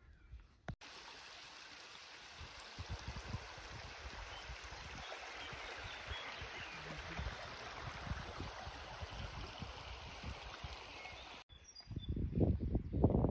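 Running water, a steady rushing with irregular low rumbles underneath, starting suddenly about a second in and cutting off near the end.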